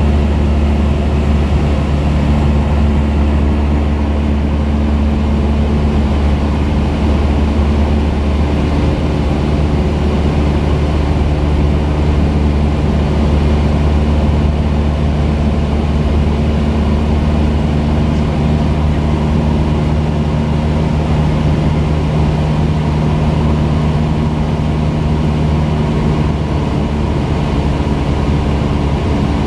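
Single-engine high-wing light aircraft's piston engine and propeller droning steadily in level cruise flight, heard from inside the cabin as a loud, even, low hum.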